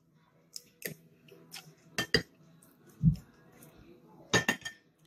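Metal fork and utensils clinking against a dish a few times while eating, with a quick cluster of clinks near the end and a dull thump about three seconds in.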